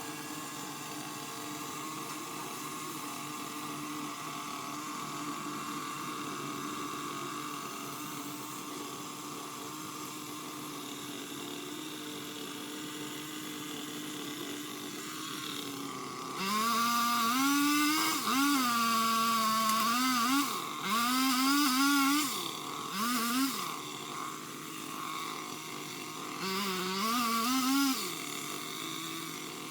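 Craftsman power limb cutter (pole saw) running steadily at a low idle, then revved hard in four bursts from about halfway through, its pitch sagging and climbing within each burst.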